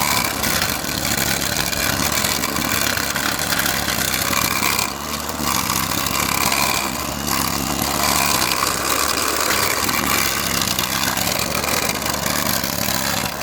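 Battery-powered string trimmer running and cutting grass, a steady motor whine with the rush of the spinning line, easing briefly about five seconds in.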